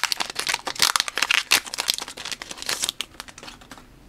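Foil wrapper of a Pokémon booster pack crinkling and tearing as it is pulled open by hand, a dense run of crackles that dies away about three seconds in.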